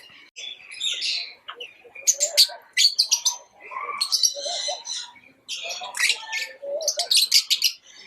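Lovebirds chirping: a busy, rapid run of short high-pitched chirps and squeaky chatter, with a few brief pauses.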